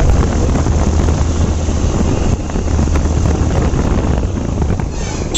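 Wind rushing over the microphone of a motorcycle riding at speed, with a steady low rumble underneath.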